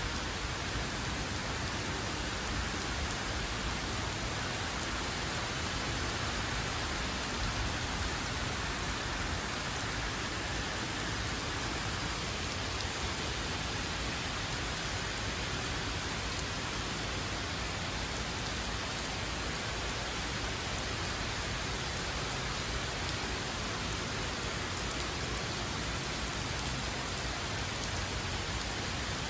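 Steady rain falling on lawns, pavement and shrubs: an even hiss that holds without a break, with a low rumble underneath.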